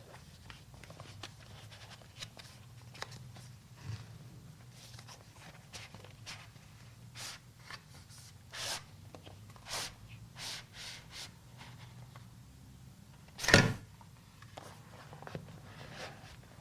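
Apple Magic Keyboard packaging being handled during unboxing: scattered short rustles and scrapes at an uneven pace, with one loud sudden noise about thirteen seconds in.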